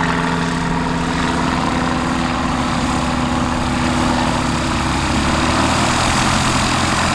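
Light aircraft piston engine running steadily at idle, a low even hum whose tone shifts slightly near the end.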